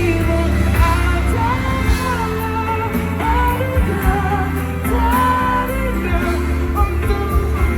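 Live pop band playing with singing over it: a steady bass and guitar under a gliding vocal melody.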